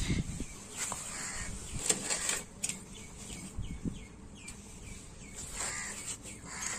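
Crows cawing several times, with a quick run of short high chirps in the middle and a few light clicks.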